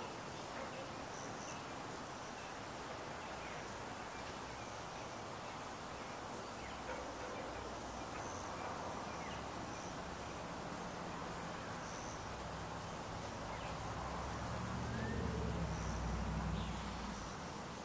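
Outdoor evening ambience: a steady, even hiss of background noise with a faint high chirp repeating every few seconds. A low rumble builds from about ten seconds in, is loudest near the end, then fades away.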